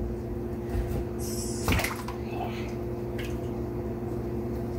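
Butternut squash halves being set and pressed into a glass baking dish with a little water in it: a soft watery slosh and one knock against the glass about two seconds in. A steady low hum runs underneath.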